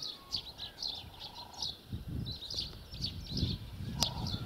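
A flock of sparrows chirping in a tree, many quick overlapping chirps, with a low rumble joining in about two seconds in.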